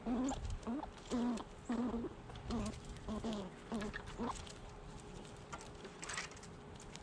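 Short, low, pitched animal calls repeated about twice a second, stopping a little past the middle, followed by a brief rustle near the end.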